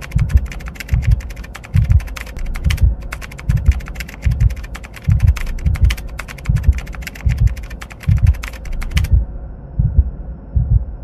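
Computer-keyboard typing sound effect: a rapid clatter of keystrokes that stops abruptly about nine seconds in. Under it a deep thump repeats steadily about every three quarters of a second.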